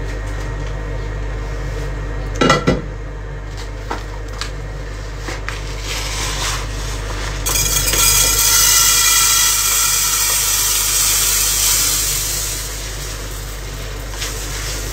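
Dry rice grains pouring from a paper bag into a metal pot, a steady rushing rattle that starts about halfway through, lasts about five seconds, then thins to a trickle. A sharp clatter of a pot or dish about two and a half seconds in.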